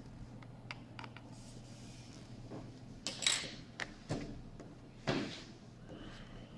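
Small clicks and a few brief scrapes and knocks of a Lenovo ThinkPad X240 laptop's case and parts being handled during disassembly. The loudest comes about three seconds in, with more around four and five seconds in.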